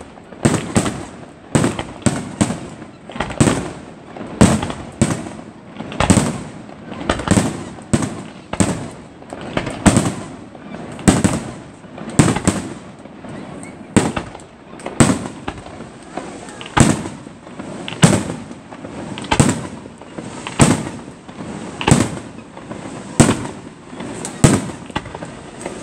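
Aerial fireworks display: a steady run of shell bursts, roughly one bang a second, each trailing off in an echo.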